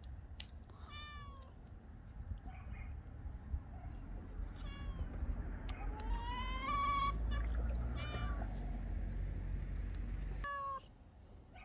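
A cat meowing repeatedly, about five meows, the longest and loudest a drawn-out one near the middle.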